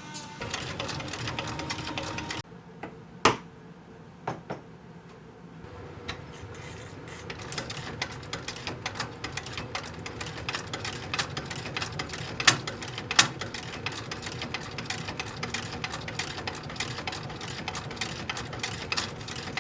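Cobbler's sewing machine stitching: after a few single clicks it settles, about six seconds in, into a fast, even run of needle strokes that continues steadily.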